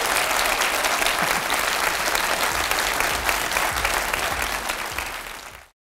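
Audience applauding: dense, steady clapping that eases slightly and then cuts off suddenly near the end.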